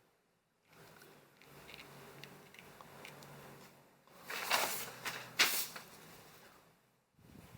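Faint handling noise as a sixth-scale action figure and its accessories are worked by hand, with two short, loud rustles about four and a half and five and a half seconds in.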